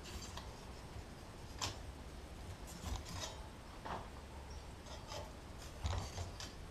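Faint, scattered clicks and light scrapes of small hand tools handling the metal petals of a forged rose, with no hammer blows.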